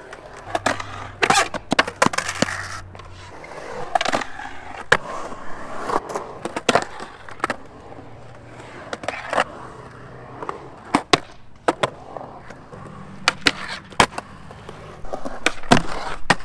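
Skateboard on Theeve titanium trucks rolling and carving on concrete, its wheels running with a steady rumble. Many sharp clacks and knocks break in as the wheels, trucks and deck hit the concrete.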